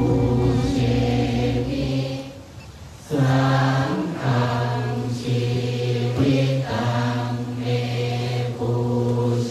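Thai Buddhist chanting: a group of low voices reciting on a steady, near-monotone pitch in long phrases. There is a short break about two seconds in before the chant picks up again.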